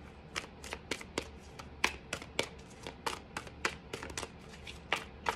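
A deck of tarot cards being shuffled by hand: an irregular run of crisp card slaps and clicks, about two or three a second.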